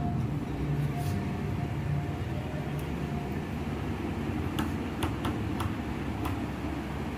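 Dried red chillies frying in hot mustard oil in a frying pan, giving a handful of sharp crackles a little past the middle, over a steady low hum.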